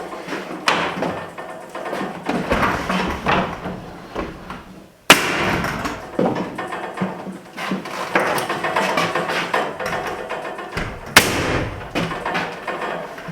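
Carpentry work noise as a sheet of OSB is fitted to a ceiling: two sharp bangs about six seconds apart, with many lighter knocks, taps and clatter of board and tools between them.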